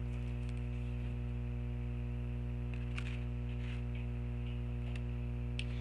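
Steady low electrical hum with a stack of even overtones, with a few faint, brief soft sounds.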